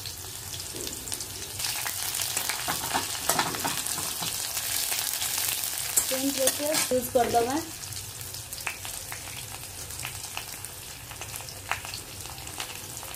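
Onion and a spice tempering frying in hot mustard oil in a kadai, a steady crackling sizzle with a steel spatula stirring through it. The sizzle is loudest about six to seven and a half seconds in, as more onion goes into the oil, and a short pitched sound comes through at the same moment.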